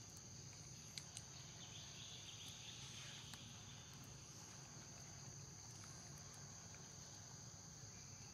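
Faint, steady high-pitched insect chorus, an even chirring drone, with a few soft clicks about a second in and again a little later.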